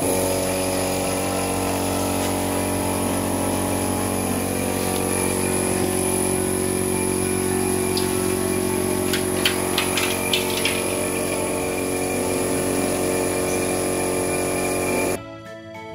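A machine running steadily at one constant pitch, with a few sharp clicks about nine to eleven seconds in; it cuts off suddenly near the end.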